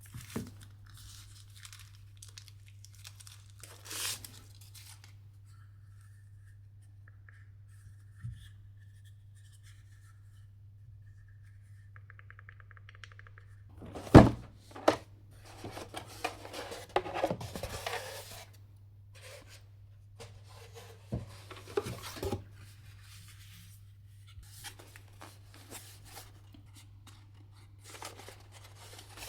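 Headphones and packaging being handled: light clicks and taps, a faint pulsing electronic tone for a few seconds, then a sharp loud knock about halfway through, followed by crinkling and tearing of packaging as the box contents are taken out.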